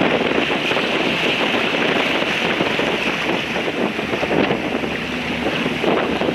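Sailboat under sail with its bow wave rushing and splashing along the hull, and strong wind buffeting the microphone: a steady, loud wash of noise.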